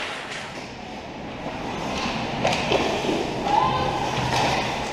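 Ice hockey play in an indoor rink: skates scraping the ice, a couple of sharp clacks of stick on puck, and voices calling out across the arena.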